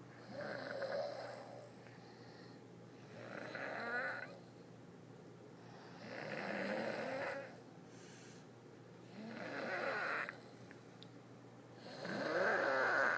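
A person snoring: five snores, about one every three seconds, with quiet breathing gaps between them; the last snore is the loudest.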